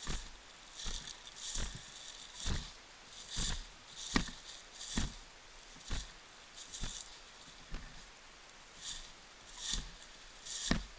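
Footsteps crunching through dry fallen leaves at a steady walking pace, a little over one step a second, each step a soft thump with a rustle of leaves.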